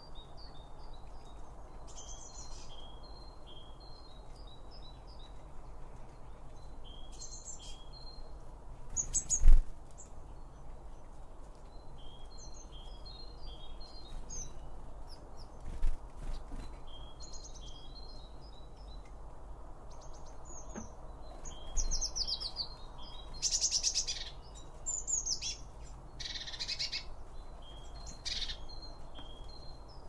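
Small garden songbirds chirping, with short, repeated high call phrases every second or two and a run of louder sweeping calls in the last third. A sharp thump about a third of the way in and a smaller one about halfway stand out over a steady low background rumble.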